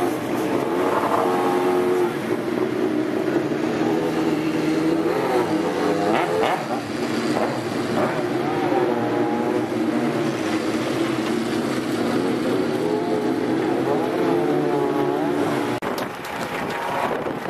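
Race car engines running at a low idle with repeated throttle blips, the revs rising and falling several times, easing off near the end.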